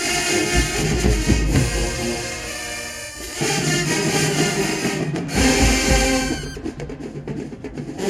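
Marching band playing loud brass over drums, with a short break about three seconds in. Near the end the horns drop out and the drums carry on alone with sharp strokes.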